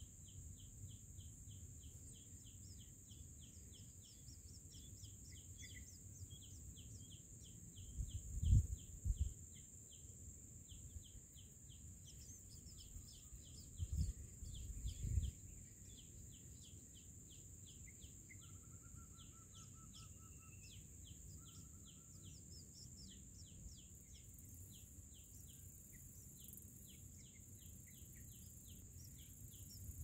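Shrike chicks begging in the nest: rapid short, high chirps, about three or four a second, going on throughout over a steady high-pitched hiss. A few low thuds about a third of the way in and around the middle are the loudest sounds.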